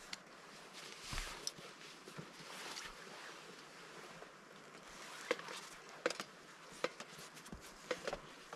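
Scattered crunching and snapping of twigs and brush in snow. A soft crunch comes about a second in, then a run of about five crisp snaps in the second half.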